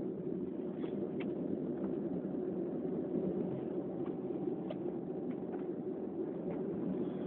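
Steady low background hum, with a few faint ticks about a second in and again near the middle.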